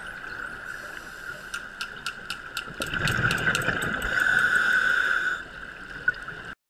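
Underwater sound picked up by a diver's action camera: a run of sharp clicks, about five a second, then a rush of bubbles from a scuba diver's exhalation, over a steady high hum. It cuts off abruptly near the end.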